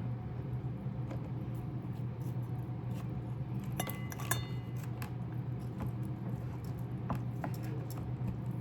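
Quiet clicks and taps of chicken being cut and put into a small cooking pot, over a steady low hum. A short ringing clink comes about four seconds in.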